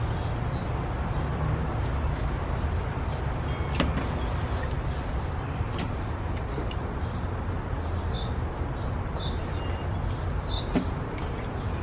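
A kitchen knife trims the stem ends off fresh okra pods, giving a few soft sharp clicks and cuts, the clearest about four seconds in and near the end. Underneath runs a steady low rumble of outdoor background noise.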